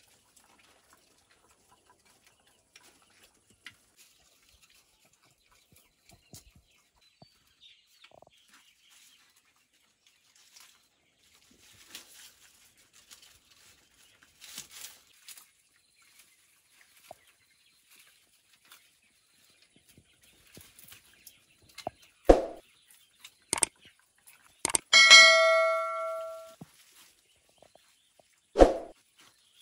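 Faint rustling and crunching of a young wild boar feeding on cut grass. Late on, a few sharp clicks, then a bell-like chime that rings and fades over a second or two, and one more sharp click near the end: the sound effects of a subscribe-and-notification-bell animation.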